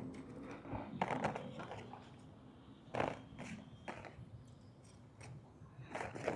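A handful of short, light clicks and knocks, scattered unevenly, over a low background hum.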